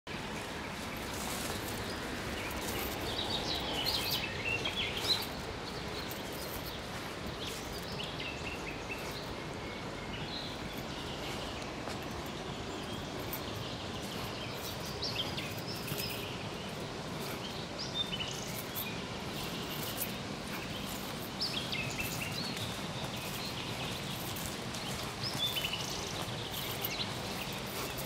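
Small birds chirping and calling on and off over a steady outdoor hiss, with the soft footsteps of someone walking a dry forest path and a sharp knock about five seconds in.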